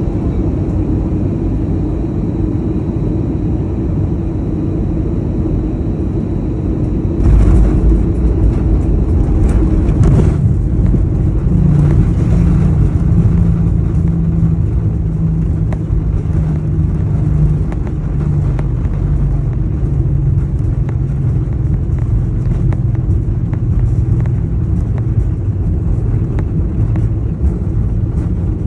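Airliner cabin noise during the landing roll on the runway: a steady rumble of engines and wheels. About seven seconds in, the roar surges suddenly louder for a few seconds, then settles into a steady low engine drone as the plane slows.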